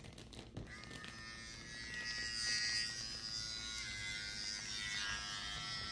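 Cordless T-blade hair trimmer for cutting lines in hair, switched on just under a second in and running with a loud, steady electric buzz.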